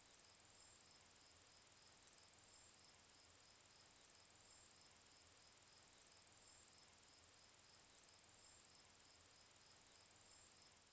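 Crickets trilling steadily: one continuous high-pitched, finely pulsing chirr with no break.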